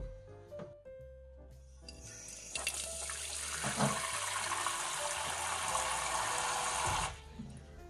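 Kitchen faucet running, its stream pouring into a glass bowl. It starts about two seconds in and stops abruptly near the end.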